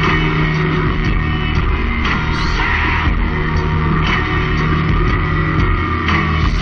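Loud rock music with guitar, playing without a break.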